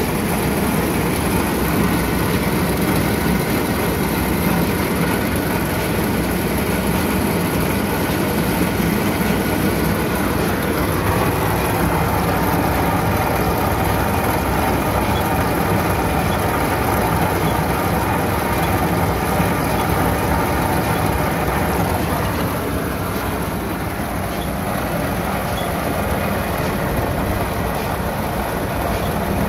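John Deere 435 round baler running under tractor PTO power: drive chains, sprockets and rollers turning over the steady running of the tractor engine.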